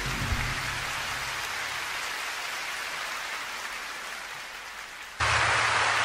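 Concert audience applauding as a song's last notes die away. About five seconds in, an abrupt edit cuts to louder applause.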